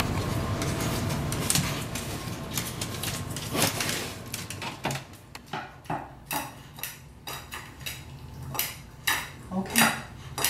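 A small dog's teeth and muzzle knocking and clinking against a hand-held stainless steel food bowl, irregular clinks several times a second with brief metallic ringing on the loudest ones. The blind Maltese is biting at the bowl itself as she eats. For the first few seconds there is only a steady low hum.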